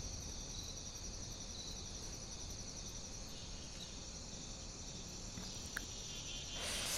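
Crickets chirping steadily as a night background, with a soft rush of noise near the end.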